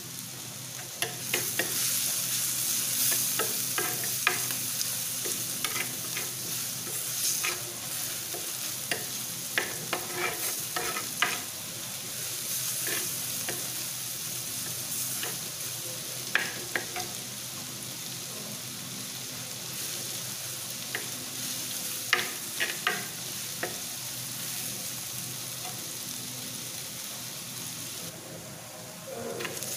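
Sliced onions sizzling as they fry in oil in an unglazed clay pot, stirred with a steel spoon that clicks and scrapes against the pot now and then. The sizzle picks up about a second in.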